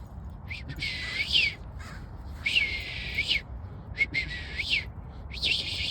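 A bird calling over and over: about four drawn-out, scratchy high calls, each under a second long and about one and a half seconds apart, over a low background rumble.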